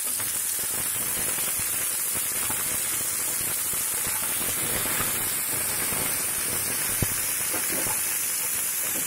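Sliced onions sizzling in hot oil in a kadai as they fry in the tempering, with a steady crackling hiss while a spatula stirs them. There is one sharp click about seven seconds in.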